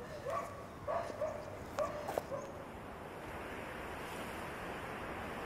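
Faint animal calls: about six short whining yelps in the first two and a half seconds, over a low steady background hum.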